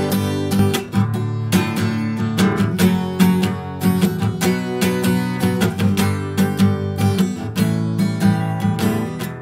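Acoustic guitar strummed in chords. Partway through, the recording switches from a Zoom H1n's built-in microphones to a BM800 condenser microphone through a Yamaha AG03 interface, unprocessed.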